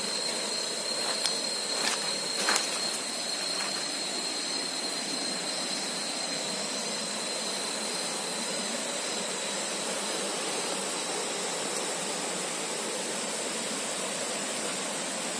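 Steady rushing noise of falling water, with a few light knocks in the first three seconds and a thin high whine that fades out about ten seconds in.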